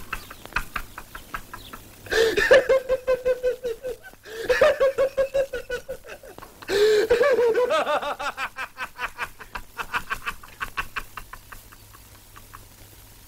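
Laughter: rapid rhythmic bursts of about five a second, with three louder bouts about two, four and a half and seven seconds in, then dying down to softer chuckles near the end.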